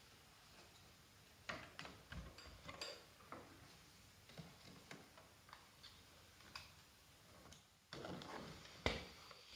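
Faint, irregular clicks and taps of a wrench and metal parts as the recoil starter is fitted back onto the snowmobile engine. Near the end come a louder rustle and one sharp knock.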